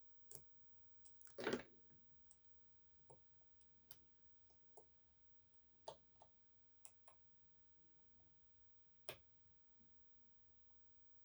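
Faint, irregular small metallic clicks of a lock pick and tensioner working the sliders of an EVVA 3KS high-security lock cylinder during picking, with one short, softer noise about a second and a half in that is louder than the clicks.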